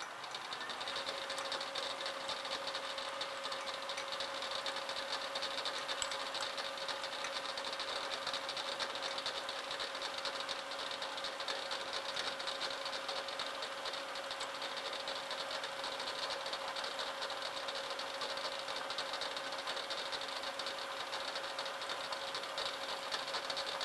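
Small metal lathe running steadily with a steady hum, its chuck spinning a brass gear while a high-speed-steel boring bar bores out the gear's centre. The sound comes up to its steady level within the first second.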